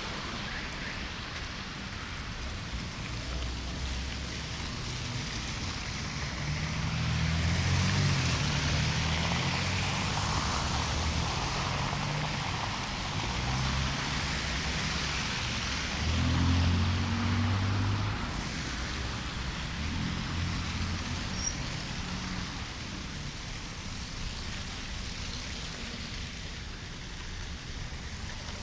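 City street ambience in a snowstorm: a steady hiss of wind and passing traffic. Low rumbles swell twice, about a quarter of the way in and again a little past halfway.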